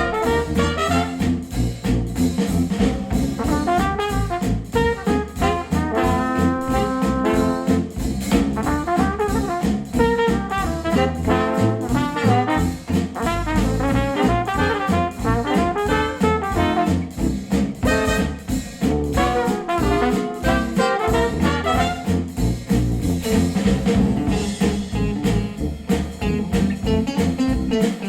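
Instrumental jazzy music with brass horns (trombone and trumpet) over a steady drum beat, played back through KEF Q350 bookshelf speakers driven by a NAD C 338 integrated amplifier.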